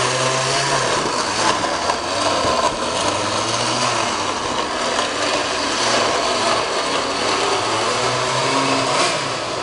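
Countertop blender running steadily, puréeing tomatoes, onions, chilies and hot water into a red salsa.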